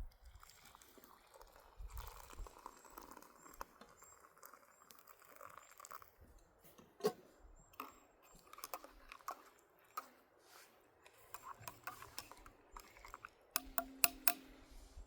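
Quiet crunching and crinkling of a snack being opened and eaten, with scattered small clicks and a quick run of clicks near the end.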